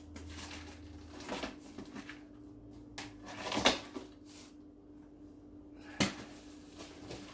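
Small knife scraping and slicing through packing tape on a cardboard shipping box, then the cardboard flaps being torn free and pulled open, with a loud rip a little past halfway and a sharp cardboard knock about six seconds in.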